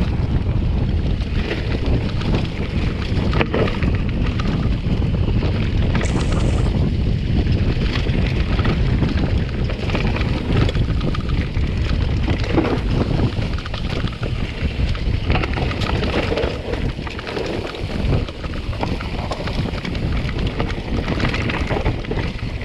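Wind buffeting the microphone of a camera riding on a moving mountain bike, with scattered clicks and knocks from the bike rattling over rough trail.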